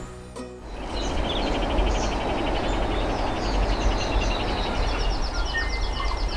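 Birds calling in native bush: a fast run of repeated notes, then higher repeated notes and scattered chirps, over a steady rushing background with low rumble. A few bars of music end just as it begins.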